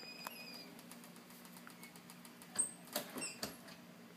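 Door swinging shut under a Global hydraulic door closer, with a few light clicks and knocks about two and a half to three and a half seconds in as it meets the frame. The closer's latch speed has been slowed, so the door settles without bouncing even though its handle latch is taped down.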